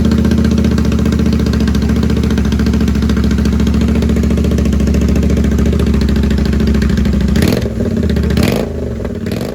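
Royal Enfield Continental GT 650's parallel-twin engine idling with its stock silencers removed, so it runs straight out of the bare header pipes. It runs steadily, wavers briefly about seven and a half seconds in, then falls away near the end.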